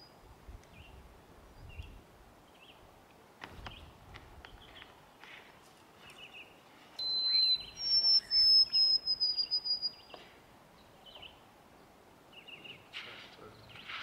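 A songbird's clear whistled song: a short lower note about seven seconds in, then a longer, higher note that falls slightly in pitch. Faint scattered chirps and quiet outdoor background fill the rest.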